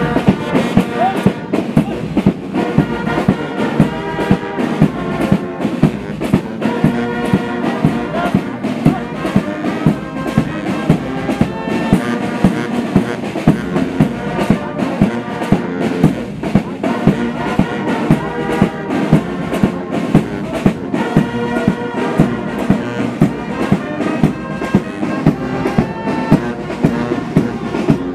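Brass band playing a march, with a steady drum beat about twice a second under trumpets and trombones.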